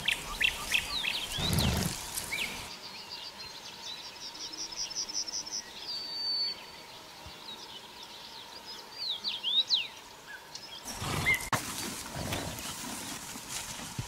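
Small birds chirping, with a fast trill of repeated notes about three to six seconds in. Soft crunching and knocking from horses grazing and stepping in grass is heard in the first few seconds and again near the end.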